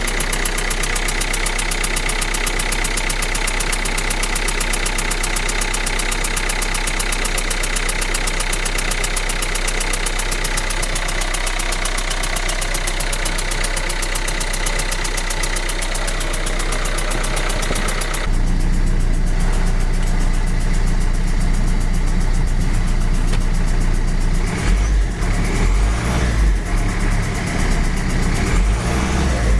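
Renault Laguna 3's 1.5 dCi K9K diesel engine idling with a fast chattering rattle. The owner cannot tell whether it comes from worn bearing shells or the injectors. About two-thirds of the way through, the sound turns duller and deeper, with uneven low bumps near the end.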